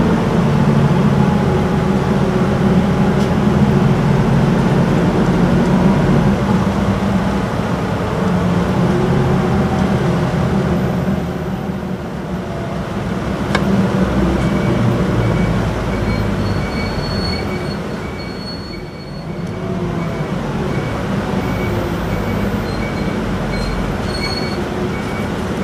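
Running sound of an Isuzu Erga city bus heard from inside the cabin: its 4HK1 four-cylinder diesel and torque-converter automatic pulling steadily along with road and body noise. It goes quieter for a moment twice, around the middle and about three-quarters in, as the bus eases off.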